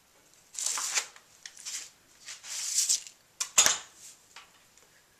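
A needle tool cutting through soft sculpture clay while the excess is trimmed and pulled off a bowl's rim: several short scraping strokes, then a sharp knock about three and a half seconds in.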